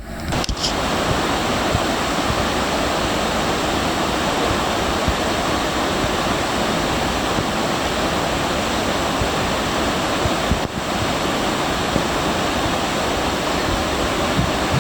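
Flash-flood water rushing hard down a desert creek, a steady loud roar, with one momentary break about eleven seconds in.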